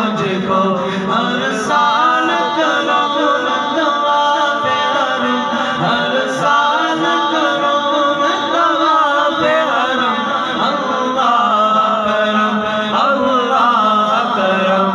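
A male reciter singing an Urdu hamd (devotional hymn in praise of God) a cappella through a microphone, in long wavering, ornamented phrases, with backing voices holding a steady low drone underneath.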